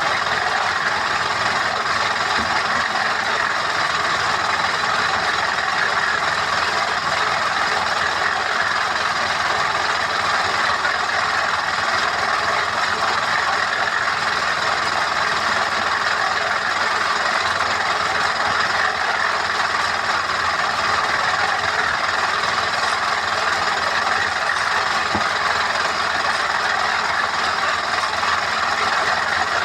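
Steady, unbroken machine noise at a constant level, like an engine or site machinery running without let-up.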